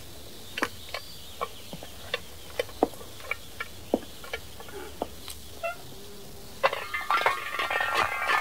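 Cross-shaped lug wrench working on a car's wheel nuts during a tyre change: a string of sharp metallic clinks, irregularly spaced. About two-thirds of the way in it gives way to a louder, busier metallic clatter with a ringing edge.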